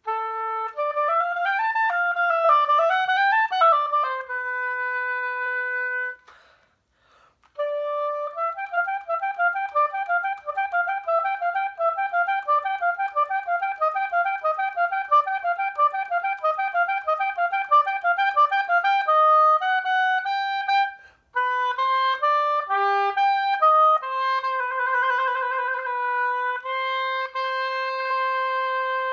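Solo oboe playing phrases broken by short breaths: a brief opening phrase, a long run of quick, evenly moving notes, and a long held note near the end.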